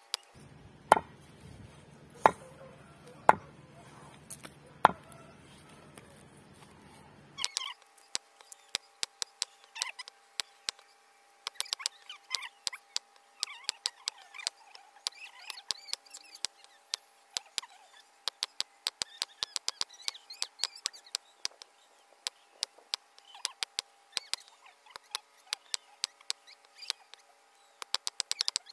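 Knife chopping raw chicken on a wooden chopping block: four heavy chops in the first five seconds, then a long run of quick, light knife taps and cuts as the meat is cut into small pieces.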